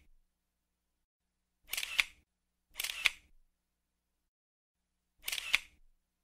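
Three camera shutter clicks, each a short rattle ending in a sharp snap: about two seconds in, a second later, and again near the end, with silence between.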